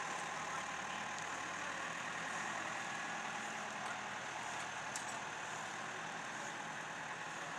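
Heavy vehicle engine running steadily, slowly getting a little quieter.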